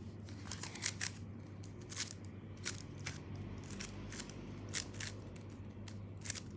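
Rapid, irregular clicking and clacking of a GAN 11 M Pro magnetic speedcube's layers being turned fast during a solve.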